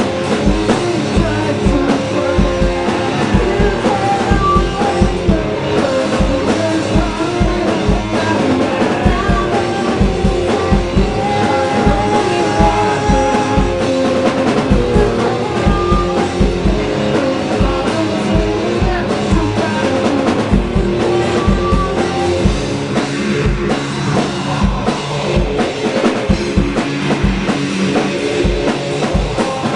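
Rock band playing live: electric guitar through an amp and a full drum kit with a steady kick-drum beat, and a man singing into the microphone.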